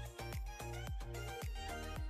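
Background music with a steady, fast beat and a melody over it.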